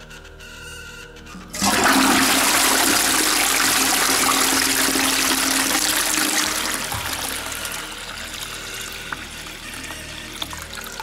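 A toilet flushing: a sudden loud rush of water starts about a second and a half in, then eases after about five seconds into a quieter steady run of water down the bowl.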